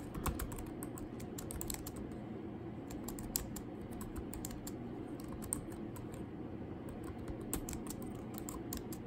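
Typing on a computer keyboard: an uneven run of quick key clicks with short pauses between bursts.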